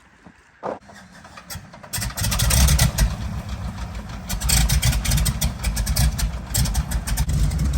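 Float plane engine starting up about two seconds in, then running loudly and steadily.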